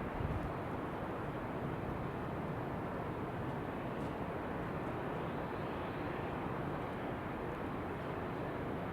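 Steady white noise blended with outdoor wind: an even hiss over a low rumble, with no distinct events.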